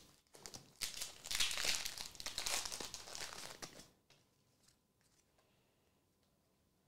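Foil wrapper of a Pokémon Surging Sparks booster pack crinkling and tearing as it is ripped open and handled, a dense crackle that stops about four seconds in.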